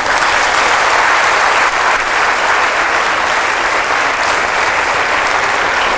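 Large audience applauding steadily, a dense sustained clapping that begins at once as a speech ends.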